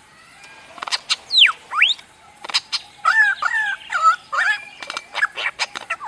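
Superb lyrebird singing. From about a second in comes a rapid, varied run of sharp clicks, swooping whistles and warbled notes.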